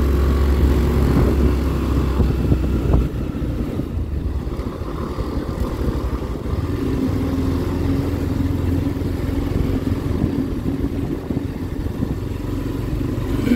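Motorcycle engine running as the bike is ridden at low speed, under a low rumble that eases off about three seconds in.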